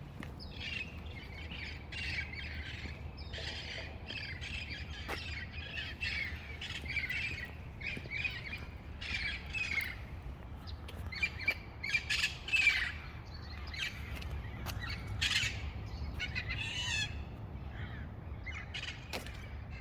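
A flock of birds calling in many short, overlapping chirps and squawks, loudest in the middle of the stretch, over a low steady rumble.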